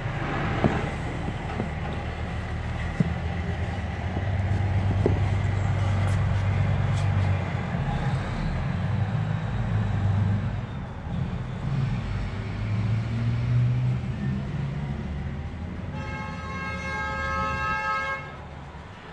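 A motor vehicle's engine rumbling steadily, swelling louder through the middle, with a horn sounding for about two seconds near the end.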